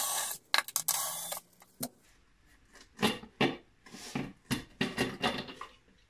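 Painted metal air filter housing lid being handled and lifted off a carburettor by gloved hands: a string of short knocks, scrapes and light rattles.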